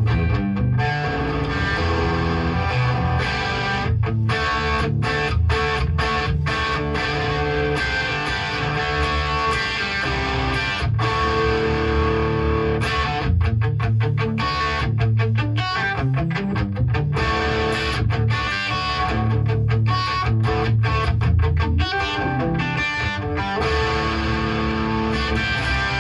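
Overdriven electric guitar from a Gibson Les Paul Custom played through a hand-wired Marshall Model 2204 (JCM800-style) valve amp head, playing rock riffs that mix held chords and single-note runs, with short choppy stops in the middle stretch.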